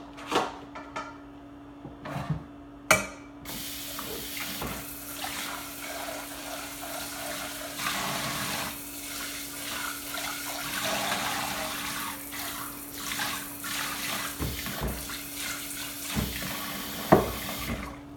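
Kitchen sink faucet running steadily as dishes are rinsed under it, starting about three seconds in and stopping near the end. Dishes and utensils clink and knock throughout, with one sharp clank of a pot near the end.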